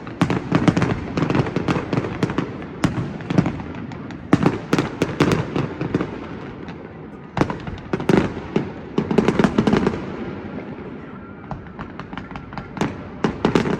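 Fireworks display: dense clusters of sharp bangs and crackling pops over deep rolling booms, coming in bursts with short lulls between them.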